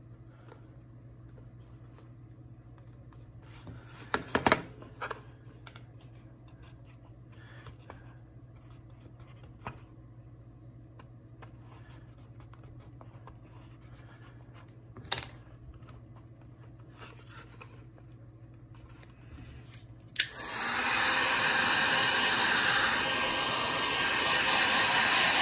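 A few scattered handling knocks and clicks over a low hum, then after about twenty seconds a switch click and a Genesis dual-temperature heat gun starts blowing, a loud steady rush of hot air.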